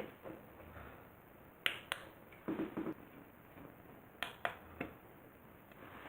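Two pairs of sharp clicks, the two in each pair about a quarter second apart, with soft handling noises in between.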